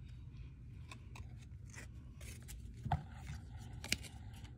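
Trading cards being handled and sorted on a wooden table: soft rustles and light clicks of card stock, with two sharper clicks about three and four seconds in.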